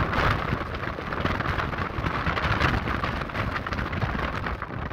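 Wind buffeting the microphone on an exposed hillside: a loud, steady rushing rumble full of rapid, irregular crackles.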